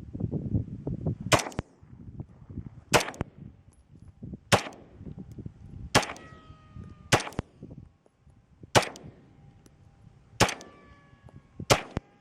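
Eight single shots from a Beretta 9mm pistol, fired at a steady pace of about one every second and a half. A metallic ring trails after two of the shots.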